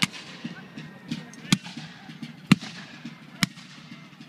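Scattered black-powder gunfire: four sharp single shots about a second apart, with fainter pops between them.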